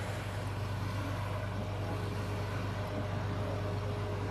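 Tour boat's engine running at cruising speed with a steady low drone.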